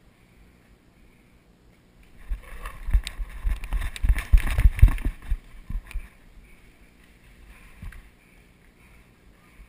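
Running footsteps over dirt and gravel, with the head-mounted action camera's microphone jolting and rubbing at each stride. The sound starts about two seconds in, lasts about four seconds as a run of irregular thumps, and settles when the runner reaches cover.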